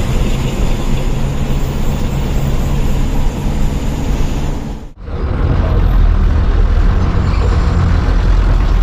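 Diesel engine and road noise of a private bus, heard from inside the cab beside the driver: a steady low drone as the bus drives. The sound dips and drops out for a moment about five seconds in, then resumes.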